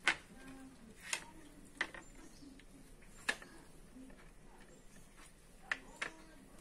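Fingers working pieces of fish into a wet spice paste on a plate: faint, scattered sharp clicks and taps, about six of them at uneven intervals.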